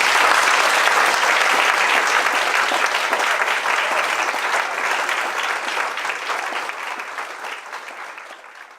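Audience applauding, strongest at first and gradually dying away near the end.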